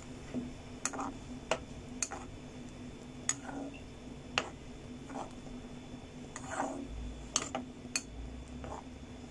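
Metal spoon clicking and scraping against a frying pan while stirring a cream sauce: irregular light clicks, roughly one every half second to a second, over a steady low hum.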